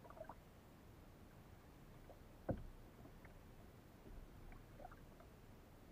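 Faint low wash of water and wind around a kayak at sea, with a few small clicks and one sharp knock about two and a half seconds in.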